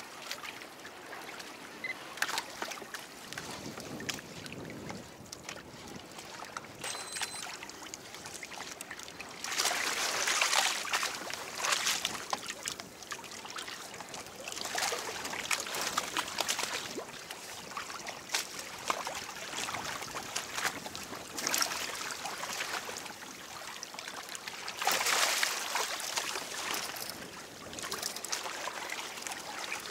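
Sea water splashing and lapping against a kayak's hull, with louder surges of splashing about ten seconds in and again about twenty-five seconds in.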